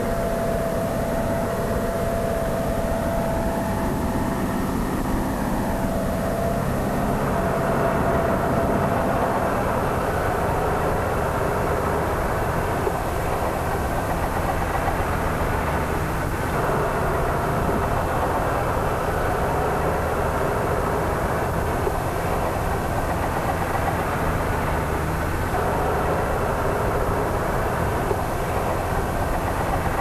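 Farm tractor's diesel engine running steadily under load as it hauls and tips a silage trailer. A thin steady whine rides over it for roughly the first nine seconds.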